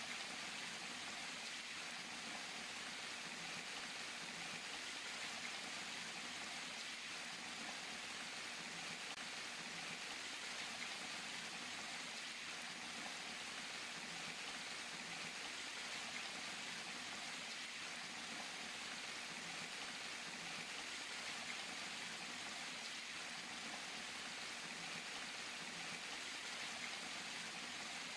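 Water splashing and running steadily, an even hiss with no breaks.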